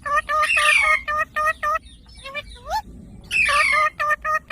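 Indian ringneck parrot calling: a harsh screech followed by a quick run of short, clipped squawks at about five a second. Rising chirps follow, and the pattern repeats about halfway through.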